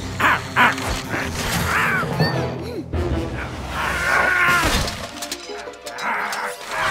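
Cartoon background music with comic sound effects layered over it, including two sharp hits near the start and a few quick sliding chirps.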